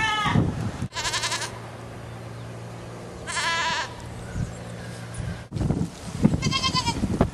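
Goats bleating: one bleat at the very start, then three more quavering bleats spaced about two to three seconds apart.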